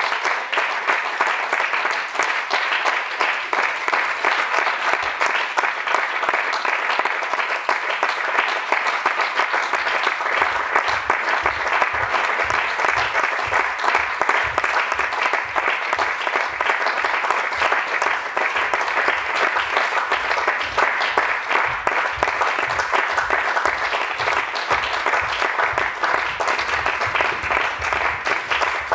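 Theatre audience applauding steadily. About ten seconds in, a run of low thumps joins the clapping and keeps on.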